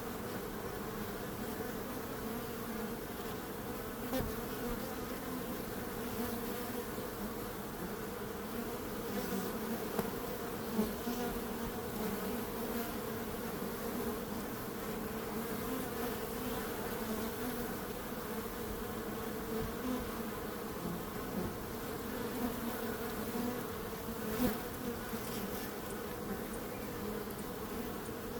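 Bees buzzing in a continuous steady drone that holds an even pitch, with a few faint brief ticks.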